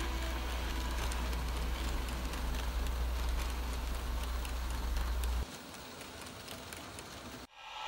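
Faint running sound of an N scale model train: a crackling hiss with small ticks over a steady low hum. The hum stops about five and a half seconds in, leaving a quieter hiss, and the sound cuts off just before the end.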